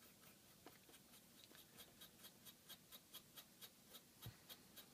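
Paintbrush dry-brushing oil paint onto a plastic scale model: faint, quick scratchy brush strokes, about four or five a second, starting about a second and a half in.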